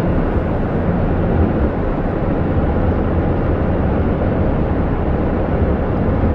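Steady road noise and engine rumble heard inside a moving car's cabin.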